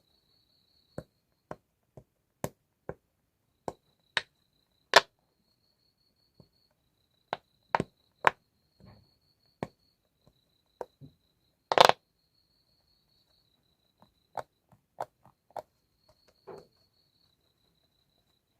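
Irregular sharp clicks and taps, roughly one or two a second with gaps, the loudest knock about twelve seconds in; a faint steady high tone runs behind them.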